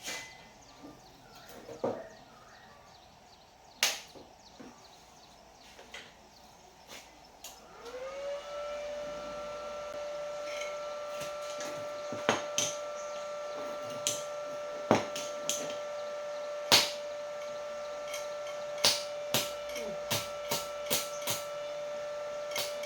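Scattered sharp taps and clicks. About eight seconds in, a machine starts up with a whine that rises briefly in pitch, then holds steady while the taps go on.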